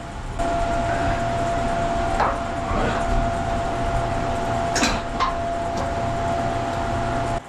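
Evaporator fans of a walk-in deer chiller running with a steady hum and a constant whine, broken by a few knocks and one sharp metallic clank about five seconds in.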